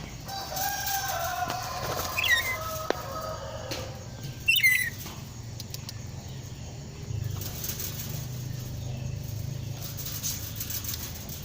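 Nuri parrot calling: a longer held call near the start, then two short, sharp calls a couple of seconds apart, with scattered clicks and knocks and a steady low hum underneath.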